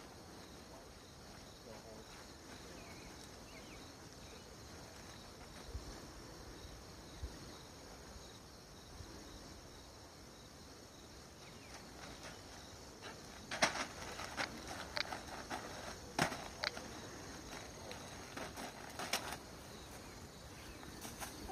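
Steady chorus of insects in the background. About two-thirds of the way in, a run of sharp knocks and crackles begins: a child's footsteps and jumps landing on hay bales close by.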